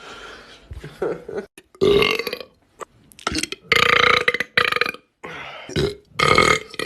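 A person belching loudly, several burps in a row with short pauses between, each under a second long.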